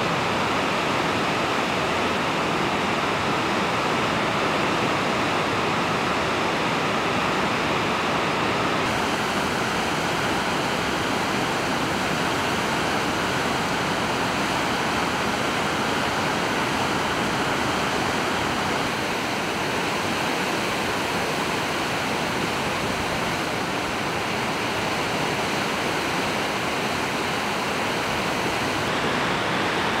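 Whitewater rapids of the Niagara River rushing over rocks: a steady, loud roar of churning water that does not let up.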